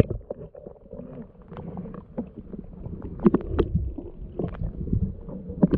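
Muffled underwater rumbling and gurgling, as heard by a camera held below the surface beside a sea kayak, with scattered sharp clicks and knocks, the loudest a little past the middle.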